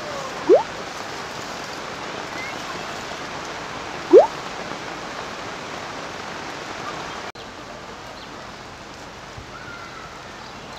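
Steady hiss of heavy rain. Two short, loud chirps sweep upward in pitch, one about half a second in and one about four seconds in. About seven seconds in the rain cuts off abruptly to a slightly quieter hiss.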